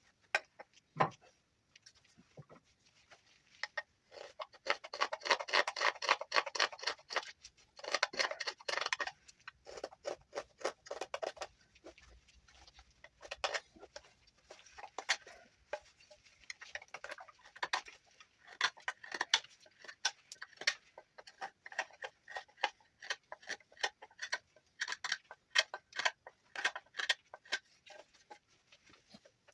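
Knife whittling juniper wood: quick, short cutting strokes, several a second, each taking off a shaving, with a dense run of scraping cuts about a quarter of the way through.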